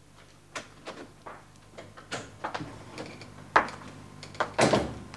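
A string of soft knocks like approaching footsteps, then a door latch clicking and the door swinging open with a low thud.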